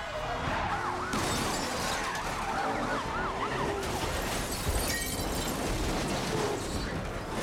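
Police car sirens rising and falling quickly over a din of speeding cars, then a car crash about four to five seconds in, with sharp impacts and glass shattering.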